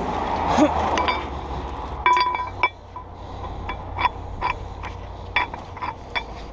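Metal towing rigging (chains, shackles and hooks) clinking as it is handled. The clinks are sharp, ringing and irregular: a quick cluster about two seconds in, then single clinks roughly every half second, over a steady low engine hum.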